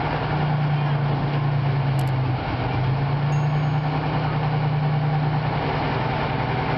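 Heavy vehicle's diesel engine running steadily. About two and a half seconds in, its pitch dips briefly, then climbs back up.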